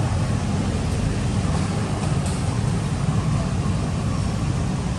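Steady low rumbling noise with a hiss above it, typical of wind buffeting the microphone outdoors.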